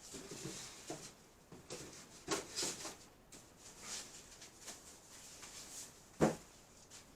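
Irregular handling noises: light knocks, clicks and rustling as things are picked up and set down, with one sharper knock about six seconds in.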